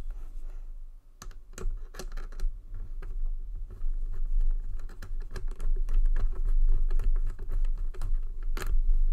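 Screwdriver turning a face-mask clip screw into the T-nut of a plastic football helmet shell: a run of small clicks and scrapes, with one sharper click near the end.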